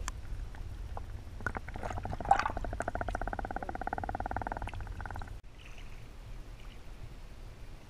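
Muffled low rumble of river water picked up by a camera held underwater, with a rapid, even buzzing pulse in the middle that stops suddenly; after that the sound drops to a quieter rumble.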